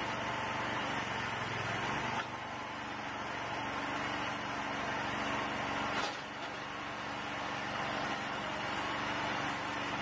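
Engine of a homemade hydraulic log splitter running steadily, its note shifting about two seconds in. A single sharp knock about six seconds in.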